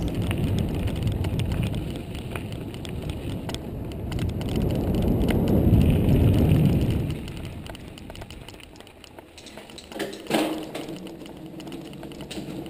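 Bicycle riding over a gravel track: a rough low rumble with fine rapid clicks from the tyres on loose stones and wind on the microphone. It drops much quieter after about seven seconds, with one sharp knock about ten seconds in.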